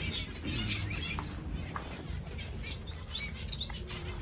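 Many small cage birds in an aviary chirping: short, high, scattered calls that overlap, with a few quick whistled glides.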